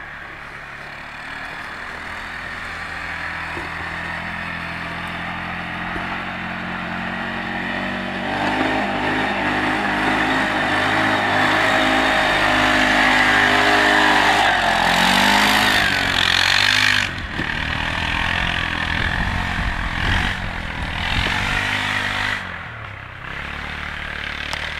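Arctic Cat 650 ATV engine driving past while towing a loaded firewood sled over snow, growing louder to a peak a little past the middle. In the second half the revs rise and fall several times, and the engine then drops back.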